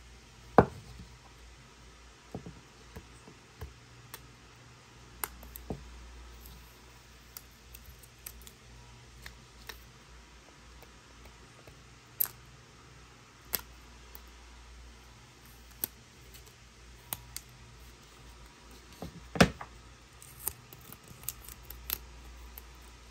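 Fingers and fingernails handling an iPod Touch, clicking and tapping against its glass screen and metal edges. The clicks are scattered and irregular, the loudest about half a second in and another about three-quarters of the way through.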